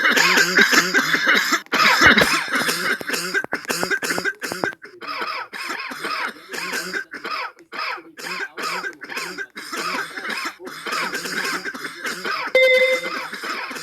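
A person coughing over and over in a long run of short coughs, with a brief steady tone sounding near the end.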